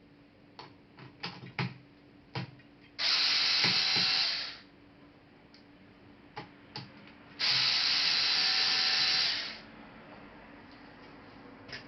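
Electric screwdriver running in two spells of about a second and a half and two seconds, backing screws out of a Toshiba Satellite A300 laptop, with a few small clicks of parts and screws handled before and between them.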